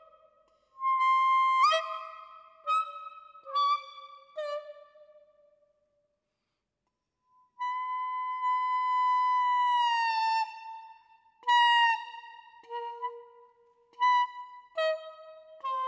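Clarinet mouthpiece and barrel played on their own, without the rest of the instrument: short, high reedy notes with scooped and bent pitches. After a pause of a few seconds comes one long held note that sags in pitch near its end, then more short notes.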